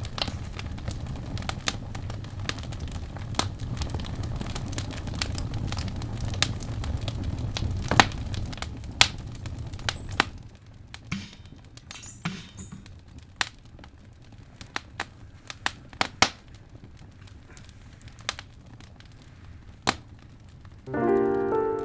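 Wood fire crackling in a fireplace, with irregular sharp pops and snaps over a low rumble that fades out about halfway through. Piano-like music comes in just before the end.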